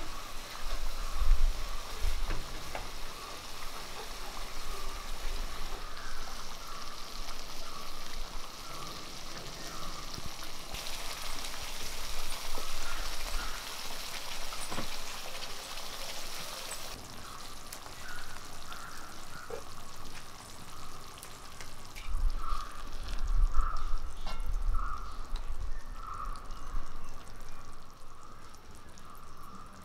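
Thick spicy masala gravy simmering in a cast-iron kadai over a wood fire, bubbling and sizzling with a steady hiss that steps louder and softer a few times.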